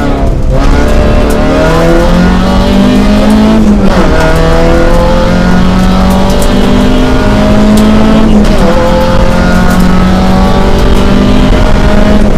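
Opel Astra GSi rally car's engine heard from inside the cabin, accelerating hard with its pitch climbing through each gear. Quick upshifts drop the pitch near the start, about four seconds in and about eight and a half seconds in.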